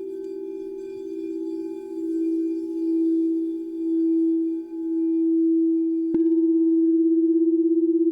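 Crystal singing bowls ringing in long sustained tones that swell and waver with a slow beat. About six seconds in, another bowl is struck and rings on with a pulsing tone.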